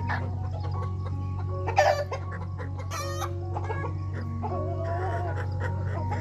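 A flock of Welsumer chickens clucking. There is a loud squawk a little under two seconds in, a harsh rasping call at about three seconds, and a wavering drawn-out call near five seconds.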